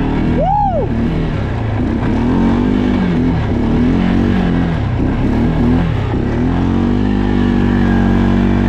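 Arctic Cat ATV engine running while being ridden, its note rising and falling with the throttle in the middle and holding steady over the last couple of seconds. A short rising-then-falling tone sounds about half a second in.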